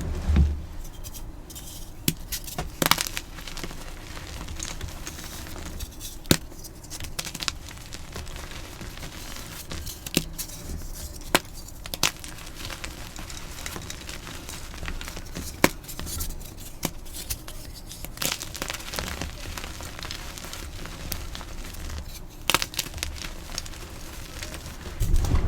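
Dyed gym chalk being crushed: a continuous crunchy crackling, broken by sharp snaps at irregular intervals as pieces break.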